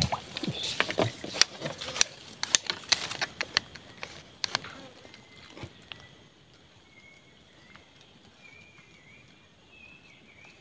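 Hooked climbing perch (betok) being pulled from the swamp water and taken in hand: a quick run of sharp splashes, slaps and knocks for the first four or five seconds, then quiet, with a few faint high chirps near the end.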